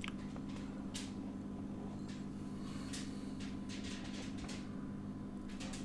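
Quiet room tone: a steady low hum with a few faint soft clicks scattered through it.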